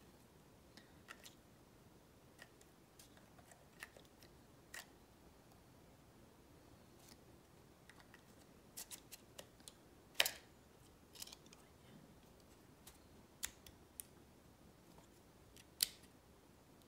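Scattered small plastic clicks and taps from a GoPro MAX 360 camera and its battery being handled as the battery is fitted into the camera body, with two sharper clicks, one about ten seconds in and one near the end.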